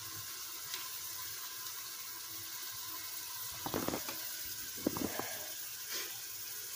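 A steady kitchen hiss, with a few short knocks and clatters around the middle and shortly before the end.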